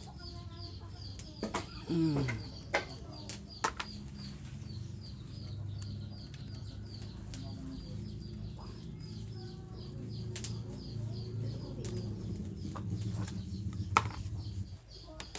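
Scattered clicks and knocks of hand tools on metal parts while an engine is being taken apart, with birds chirping steadily in the background.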